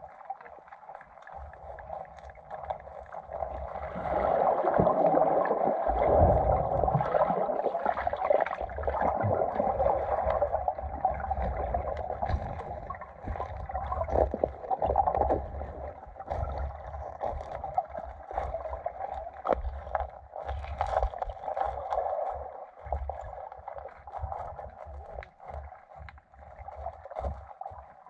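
Muffled water sloshing and gurgling heard through a submerged GoPro's housing, with scattered knocks. It grows louder about four seconds in, then slowly eases off.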